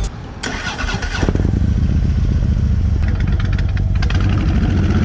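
Honda Fury 1300's V-twin engine starting: a brief crank that catches about a second in, then runs steadily at idle.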